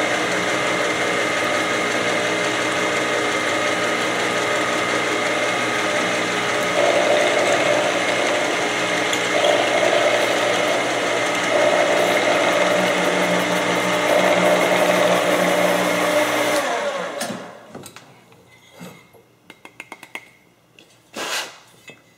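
Milling machine running with an end mill cutting through aluminium extrusion: a steady machine whine, with a louder cutting tone coming and going from about seven seconds in. The machine stops about seventeen seconds in, followed by a few light clicks and a knock near the end.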